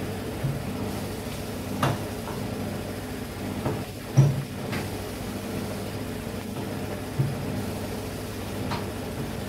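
A steady low mechanical hum runs throughout, with a few short knocks and clunks, the loudest about four seconds in, as a motorcycle tyre is being worked off its spoked rim.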